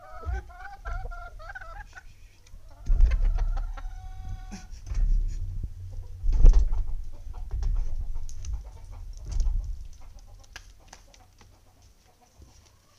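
Chickens calling and clucking, with two drawn-out wavering calls in the first half. Loud low rumbling and scattered knocks sound alongside, dying away over the last few seconds.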